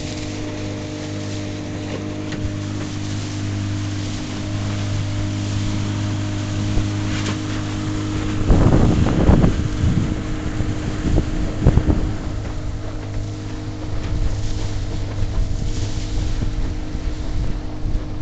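Motor of a piragua (long river boat) running steadily under way, a constant low hum, with water rushing past the hull. Wind buffets the microphone in heavy gusts about eight to twelve seconds in.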